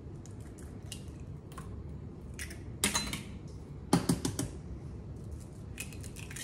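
Eggs being cracked against the rim of a bowl: sharp taps of shell on the bowl, in two loud clusters about three and four seconds in, with fainter ticks of shell being pulled apart between.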